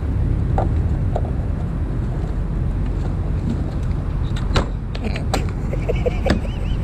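Steady road and engine rumble heard from inside a Smart car on the move, with a few short clicks in the second half and a faint warbling tone near the end.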